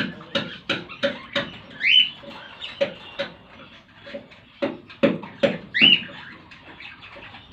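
Lovebirds calling: a run of short, sharp chirps, about two or three a second, with two louder shrill rising calls, one about two seconds in and one near six seconds.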